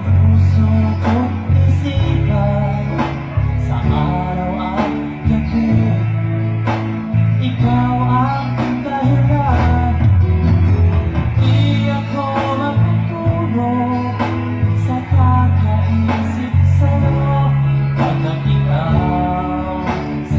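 A song with a male singer and guitar played loud through loudspeakers under test, a CV 15-inch woofer and a MIDHI 12S8, with a heavy, prominent bass line that shifts notes every second or so.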